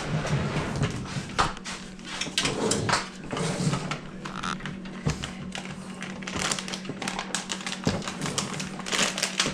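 Irregular clicks, taps and rustling from computer parts and plastic packaging being handled, over a steady low hum.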